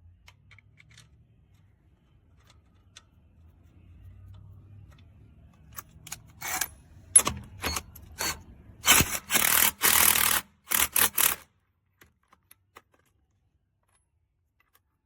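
Cordless impact wrench run in a series of short trigger bursts, hammering with a rapid rattle, the longest burst about a second and a half. Before it there is a faint low hum.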